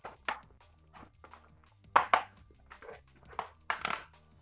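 Plastic motorcycle tail cowling being handled and pressed onto its mounting tabs: a few irregular sharp plastic clicks and knocks, two close together about two seconds in and another pair near the end, over quiet background music.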